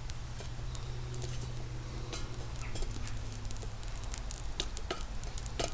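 Small wood fire crackling, with frequent sharp, irregular pops and snaps.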